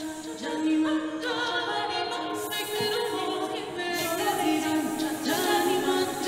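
Choir singing a cappella: several voices holding long notes together, changing chord every second or so, growing louder at the very end.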